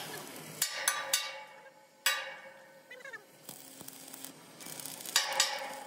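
Electric arc (stick) welding on a steel box-section frame: the arc crackles and hisses in short bursts, with a few sharp metal knocks before the first burst.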